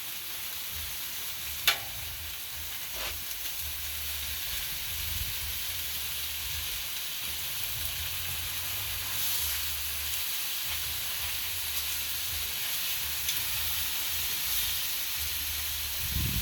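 Chicken and pork frying on a Blackstone flat-top griddle, a steady sizzle, with a sharp click about two seconds in.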